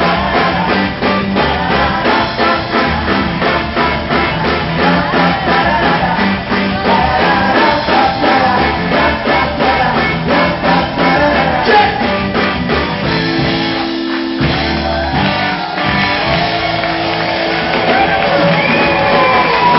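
Live rock band playing a Greek song, with singing over electric guitar and a steady beat. About two-thirds of the way through the beat stops for a moment under held notes, then the singing carries on.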